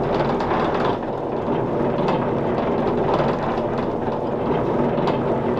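Slipway winch running steadily, its wire-rope drum hauling the boat cradle up the rails, with a few faint clicks.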